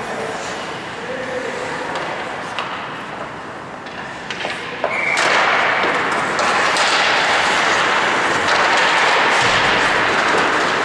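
Ice hockey play echoing in a large indoor rink: skate blades scraping the ice and a few sharp stick-and-puck clacks, with the noise of the hall rising suddenly to a steady louder level about five seconds in.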